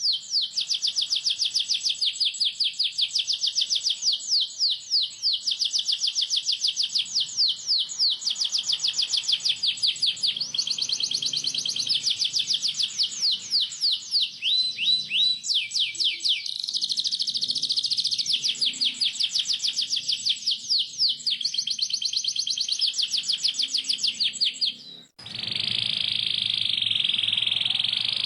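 Domestic canary singing long, tight rolls: fast trills of rapidly repeated, downward-sweeping high notes. About 25 seconds in the song breaks off for a moment, then resumes as a denser, more continuous song over a low hum.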